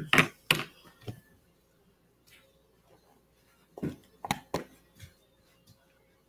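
A few sharp knocks and taps from a small plastic cup of sticky slime being handled: a cluster in the first half-second and three more about four seconds in.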